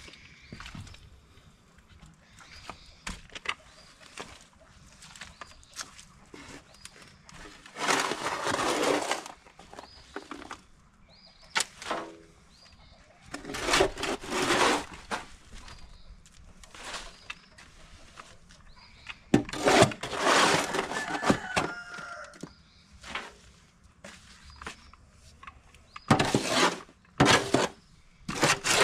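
Wet chunks of wood ash and biochar being added to a cast-iron bathtub, in four loud noisy bursts a second or two long, with scattered clicks and rustles between them.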